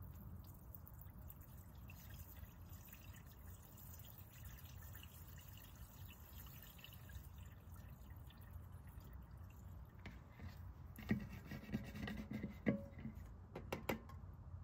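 Engine flush additive draining from an upturned plastic bottle into an engine's oil filler neck. It pours faintly at first, then comes a cluster of louder glugs and clicks over the last few seconds as the bottle empties.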